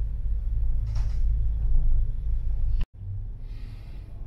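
Deep, steady rumble of a ride inside a moving vehicle cabin, with a short rush of hiss about a second in. It cuts out abruptly just before three seconds in and comes back quieter.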